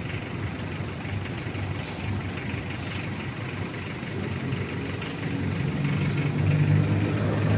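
Vehicle engine running close by: a low, steady rumble that gets louder, with a clearer engine hum, over the last couple of seconds. Faint short high ticks come about once a second.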